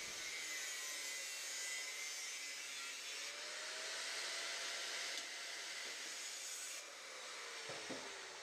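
Power cutting tool whirring as it cuts a sheet-metal battery hold-down bracket: a steady hiss with a faint whine that rises and falls in pitch, easing off about seven seconds in.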